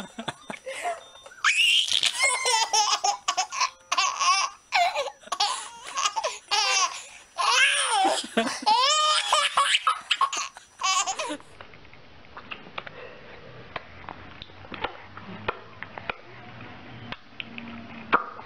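Baby laughing in repeated bursts of giggles and belly laughs, stopping abruptly about eleven seconds in. Faint room noise with a low hum and a few small clicks follows.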